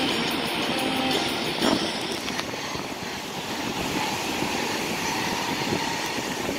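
Ocean surf breaking and washing onto a sandy beach: a steady rush of noise.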